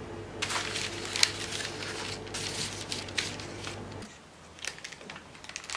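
Crinkling, rustling handling sounds with scattered crackles over a steady low hum; the hum cuts off about four seconds in.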